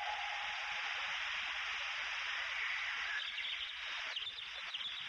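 Steady hiss like static or rushing noise, with a few faint short whistling traces in the second half.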